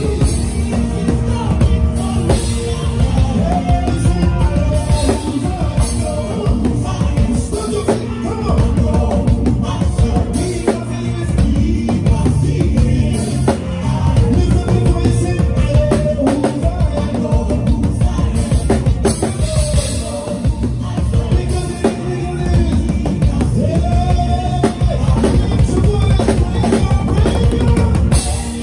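Live gospel praise band playing an upbeat groove: a drum kit with kick drum and cymbals drives a steady beat under bass, keys and singing.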